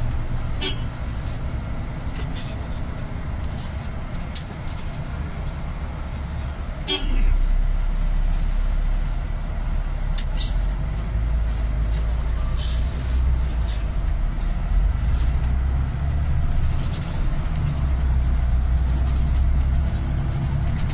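Road and engine noise heard from inside a moving vehicle: a steady low rumble that grows louder about seven seconds in, with a few brief clicks or rattles.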